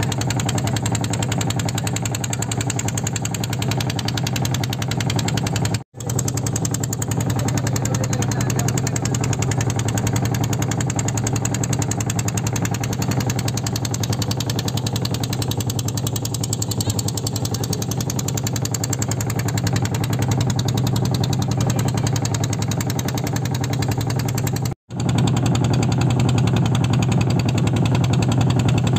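A small motorboat's engine running steadily as the boat cruises, a loud even low hum. The sound drops out for an instant twice, about six seconds in and again about 25 seconds in.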